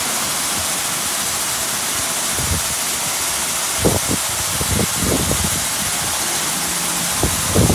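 Ryko SoftGloss Maxx 3 in-bay car wash running its touch-free cycle, water jets spraying a car in a steady hiss, with a few low irregular thumps from about four seconds in.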